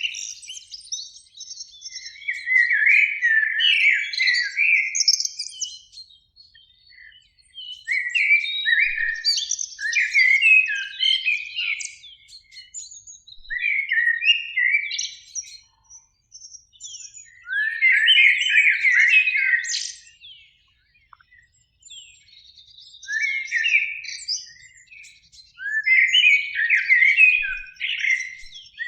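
Eurasian blackbird singing: about six warbling, fluty phrases of two to three seconds each, with higher twittering notes, separated by short pauses.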